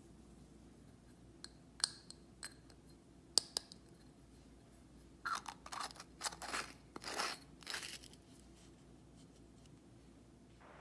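Small clear plastic glitter jar with a screw cap being handled: a few sharp plastic taps and clicks, then a quick run of short scraping, rustling strokes partway through.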